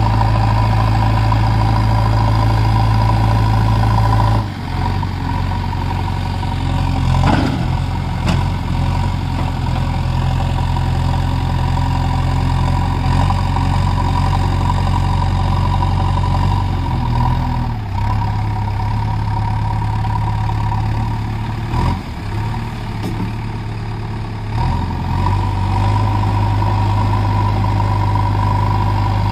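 JCB 3DX backhoe loader's diesel engine running steadily. Its note drops and shifts about four seconds in and changes several more times as the backhoe arm works, and a few short knocks come through.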